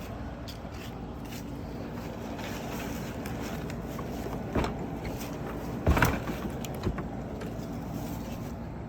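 Steady running drone of a pressure washer's engine, with a few short knocks and bumps about halfway through, the loudest around six seconds in.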